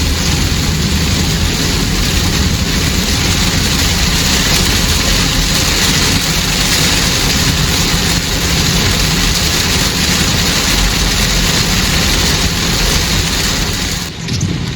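Car driving in heavy rain, heard from inside the cabin: a steady hiss of rain and tyres on wet road over a low engine and road rumble. The hiss drops away briefly near the end.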